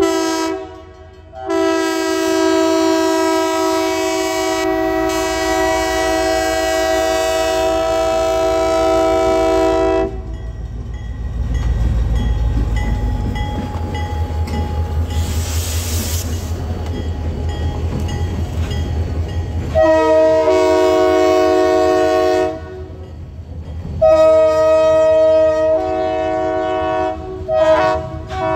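Diesel locomotive's multi-note air horn sounding for a road crossing: a short blast, then a long blast of about eight seconds, followed by the low rumble of the locomotives' diesel engines going by. Several more horn blasts come in the last third.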